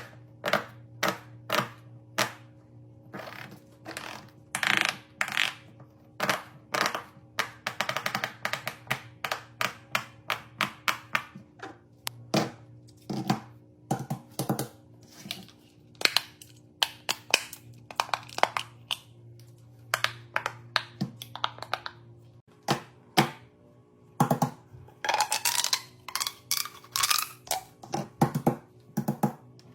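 Fidget toys being played with: an irregular run of sharp clicks and pops, with quicker clusters about eight seconds in and near the end, over a faint steady background tone.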